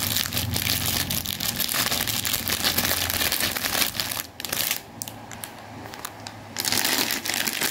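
Clear plastic bread bag crinkling and rustling as hands handle it to open it. The crinkling dies down for a couple of seconds past the middle, then starts again.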